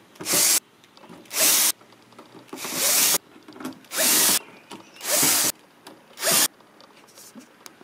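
Cordless drill-driver backing out the six screws of a sheet-metal access panel on an electric smoker, in six short runs about a second apart.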